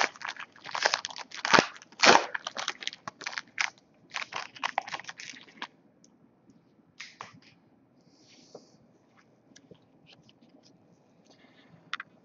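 A trading card pack's wrapper being torn open and crinkled, a dense run of sharp crackles for about five seconds, then only scattered faint ticks and rustles as the cards are handled.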